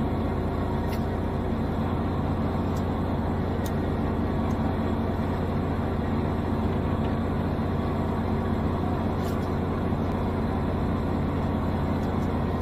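Fishing boat's engine running with a steady, even low drone, with a few faint ticks on top.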